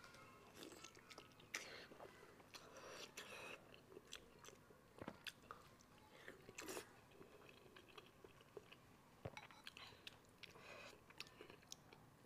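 A person quietly chewing mouthfuls of spicy pig brain, with frequent short mouth clicks and smacks picked up close by a clip-on microphone.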